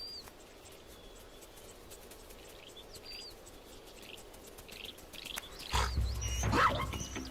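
Faint bird chirps, then about six seconds in a short, louder scuffle with low thuds and a brief animal call: zebras rebuffing a lost wildebeest calf.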